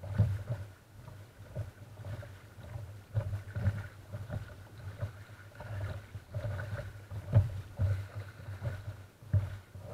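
Water lapping and knocking against a sea kayak's hull as it moves through gentle swell, heard as a low hollow rumble through the deck-mounted camera. Irregular louder thumps come every second or two, the strongest about seven seconds in.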